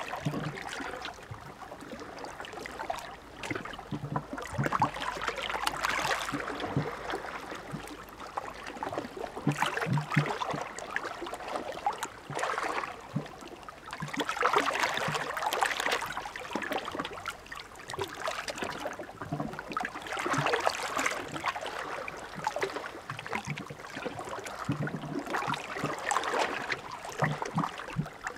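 Small waves of the Adriatic Sea breaking and washing on the shore, the water noise swelling and ebbing about every five seconds with a gurgling wash between.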